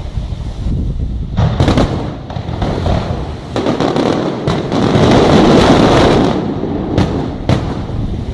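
Aerial fireworks shells bursting: several sharp bangs, with a dense, loud barrage of crackling bursts in the middle.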